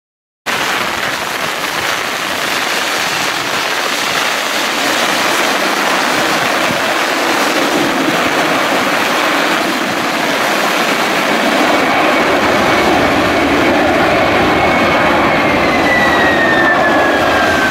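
Boeing 767 jet engines in reverse thrust during the landing rollout: a loud, steady jet noise that grows slowly louder and deeper. Near the end a whine falls in pitch.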